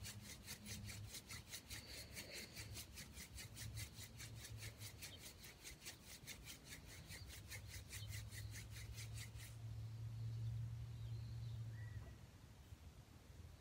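Hand-drill friction fire: a mullein spindle spun between the palms on a yucca hearth board, dry wood rasping in a fast even rhythm of about four strokes a second. The strokes stop abruptly about two thirds of the way in, and a low steady rumble follows for a couple of seconds.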